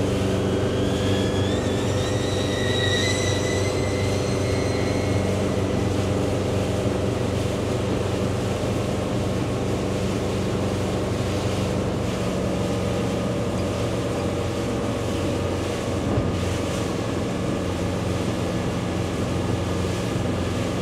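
Motorboat engine running steadily at speed: a low, even hum under a constant rush of water and air noise. A faint high whine rises slowly over the first few seconds, then fades.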